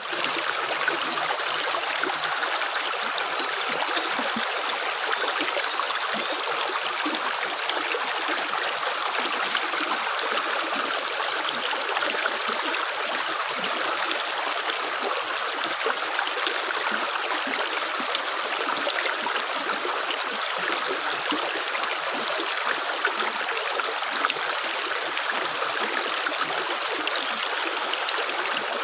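Running water, like a small stream: a steady, even babbling rush with no separate drips standing out.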